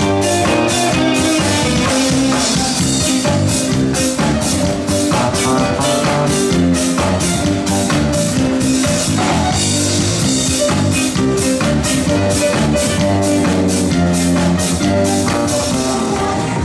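Live band playing an instrumental passage with no vocals: electric guitar and electric bass guitar over a steady drum-kit beat.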